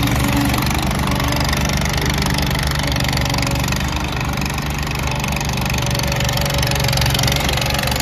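Terramite T5C loader backhoe's 20 hp Kohler gas engine running steadily as the machine drives and turns at low speed.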